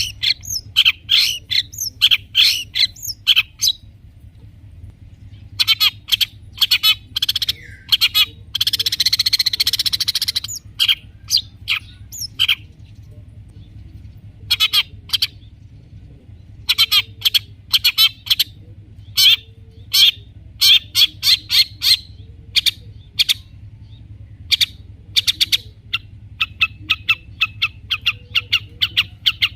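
Long-tailed shrike (cendet) singing in quick bursts of sharp chips and chatter with short pauses, including a harsh rasping stretch about nine seconds in and a fast run of repeated notes at the end. It is a varied song full of mimicked calls of other birds, such as fighting sparrows.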